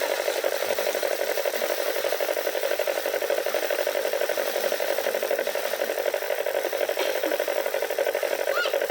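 Paddy threshing machine running steadily while rice is threshed, a continuous mechanical sound with a fast, even flutter.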